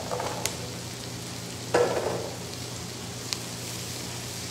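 Diced carrots tipped into a hot oiled frying pan, sizzling loudly as a large batch lands about two seconds in, over steady frying of onions and carrots. A couple of sharp metal clicks against the pan.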